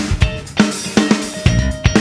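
Upbeat background music driven by a drum-kit beat, sharp kick and snare hits falling a fraction of a second apart over sustained bass and instrument notes.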